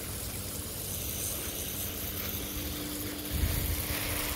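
Steady hiss of water spraying from a garden hose. A faint steady hum runs underneath, and a low rumble joins a little over three seconds in.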